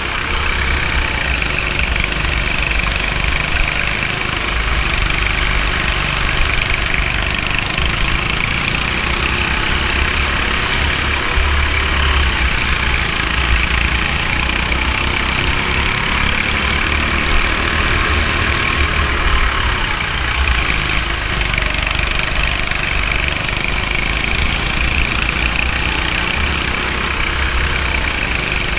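Go-kart engine running continuously at speed, heard from on board the kart, its pitch rising and falling through the corners.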